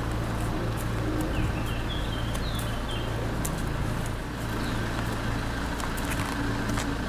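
A car engine idling steadily, with a small bird chirping a quick run of short notes about one and a half to three seconds in.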